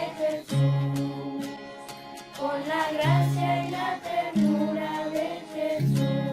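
Music: a song with singing over an instrumental accompaniment of held bass notes and regular strummed or struck beats.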